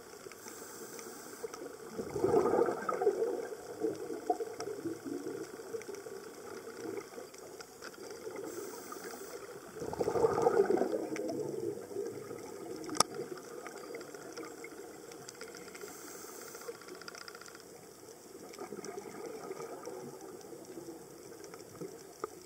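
A scuba diver's regulator breathing underwater: three breaths about eight seconds apart, each a short hiss of inhaling followed by a louder bubbling rush of exhaled air, the last one weaker. A single sharp click about 13 seconds in.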